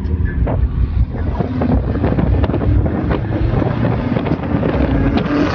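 Car engine and exhaust running under load while driving, with wind buffeting the microphone through an open car window.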